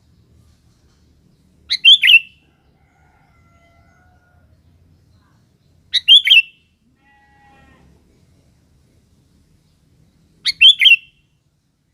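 Sooty-headed bulbul (kutilang) singing: three short, loud phrases of three or four quick notes each, about four seconds apart. Faint thin whistled notes come in between.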